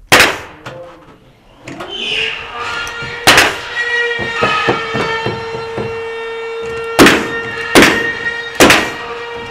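Pneumatic stapler firing staples into wood framing: five sharp shots, one at the start, one about three seconds in and three in quick succession near the end, with a few faint clicks between. A steady hum rises in about two seconds in and holds under the shots.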